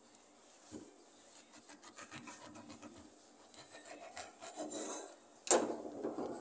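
Serrated knife scraping and sawing through orange peel in quick repeated strokes, with a sharp loud knock about five and a half seconds in, followed by louder rubbing.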